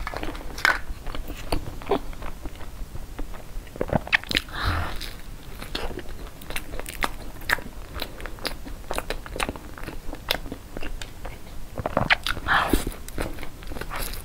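Close-miked biting and chewing of flaky-pastry egg tarts: many crisp crunches and mouth sounds.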